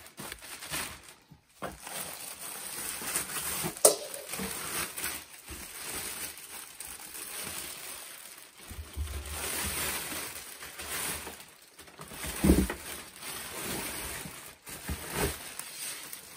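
Plastic wrapping rustling and crinkling as it is pulled off a boxed air compressor, with cardboard box handling. A sharp click comes about four seconds in, and a louder knock about twelve and a half seconds in.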